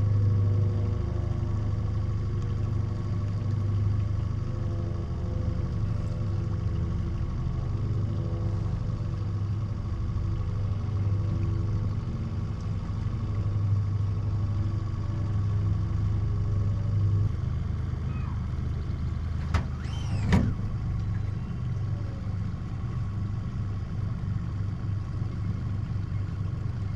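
Small outboard motor running steadily at trolling speed, a low even hum whose tone shifts slightly about two-thirds through. Two sharp knocks close together come about twenty seconds in.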